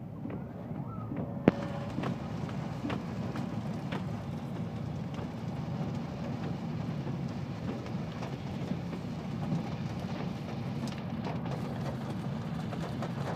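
Steady noise of a car driving through heavy rain, heard from inside the cabin: engine and tyres on a wet road with rain on the windows. A single sharp click comes about a second and a half in.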